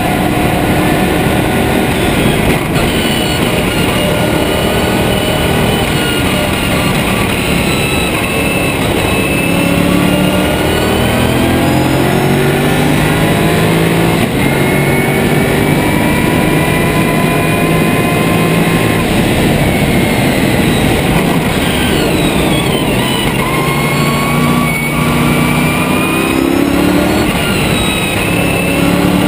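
Lotus Esprit twin-turbo V8 race car engine under racing load, its revs repeatedly climbing, holding and dropping back through gear changes. Heavy wind and road noise runs underneath.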